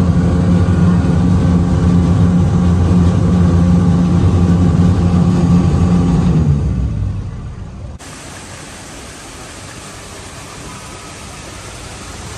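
Motorized river raft's engine running with a steady low hum, winding down and fading out about six to seven seconds in as the raft comes up to the dock. Then a quieter steady rushing noise.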